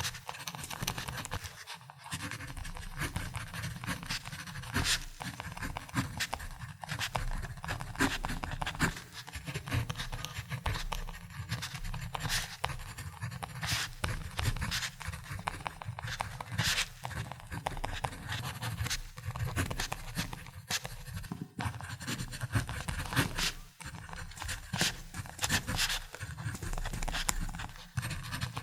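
Ballpoint pen writing on paper: a steady run of short scratchy strokes and small ticks of the tip, without pause.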